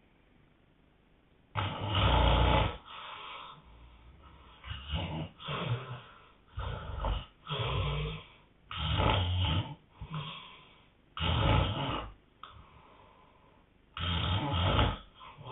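A man snoring hard: after a quiet second and a half, an uneven run of loud snores follows, about one a second, with a short lull near the end.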